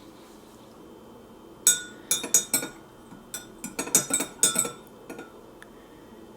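Glassware clinking: a quick series of sharp, ringing clinks, about a dozen over three and a half seconds, starting nearly two seconds in.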